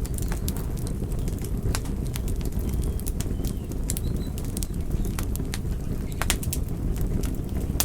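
Campfire burning, with a steady low rumble of the flames and many irregular sharp crackles and pops from the wood. A few faint high whistles come through now and then.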